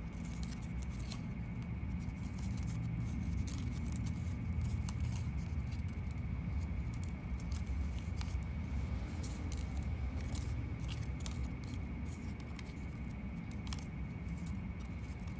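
Crisp crackles and rustles of a paper dollar bill being folded and creased by hand. Beneath them there is a steady low hum and a faint high whine.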